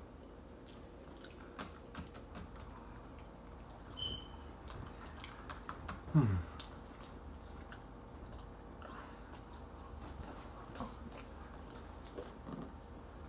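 Close-up chewing and biting of chicken nuggets, with small clicks and mouth noises throughout. About six seconds in, a short, louder sound slides down in pitch.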